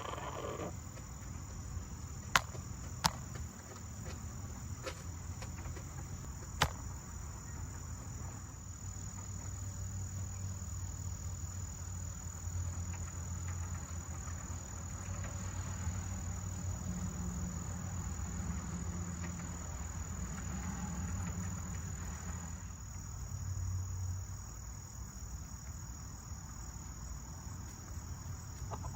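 Crickets chirping in a steady, continuous high-pitched drone, with a few sharp clicks in the first seven seconds and a low rumble swelling in the middle.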